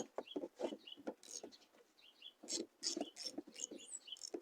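Wrench working loose the mounting bolts of a C4 Corvette's fuel pump: quick, short strokes in two runs, with a lull about halfway through.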